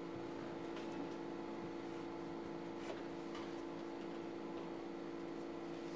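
Steady electrical hum of quiet room tone, with a couple of faint soft knocks about a second in and again nearly three seconds in.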